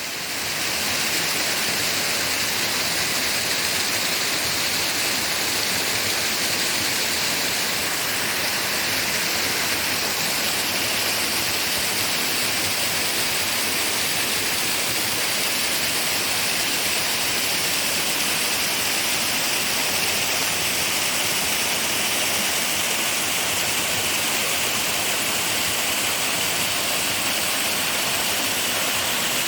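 Small mountain waterfall pouring and splashing, a steady hiss of falling water.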